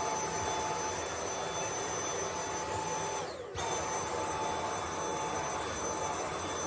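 Vacuum cleaner running, its steady whine and rush of suction drawing dust out of a ventilation grille. About three and a half seconds in, its sound briefly drops and sweeps, then recovers.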